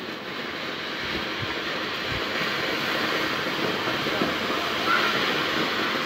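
Ground fountain firework (a 'flower pot') hissing steadily as it sprays sparks, growing a little louder over the first seconds.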